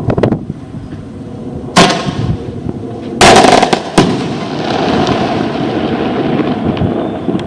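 A multi-shot 'multi-estrelado' star fireworks cake firing. There is a sharp bang about two seconds in, a louder half-second burst a little after three seconds and another sharp bang at four seconds, then a hiss that slowly fades.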